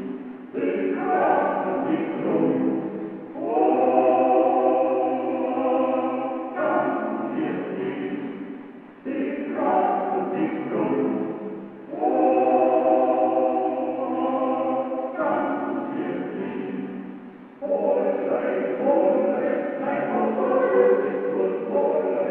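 Soundtrack music: a choir singing slow, held chords in phrases a few seconds long.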